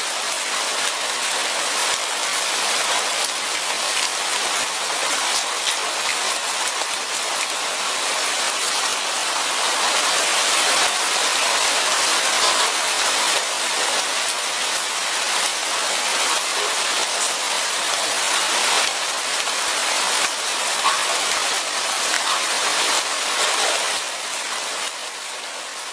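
Light rain falling steadily: a dense patter of small drops that fades out over the last two seconds or so.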